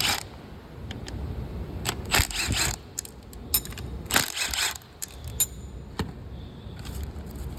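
Metallic clinks and rattling of a hand wrench and small 8mm bolts being worked loose from an engine's water jacket, with two short bursts of rattling and a few sharp clicks.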